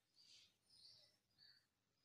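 Near silence with three faint, short scratches of a pen on ruled notebook paper in the first second and a half, as a letter is written.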